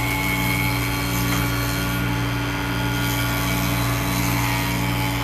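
Woodworking jointer running with a steady motor hum while wood is fed across its cutter to taper a table leg.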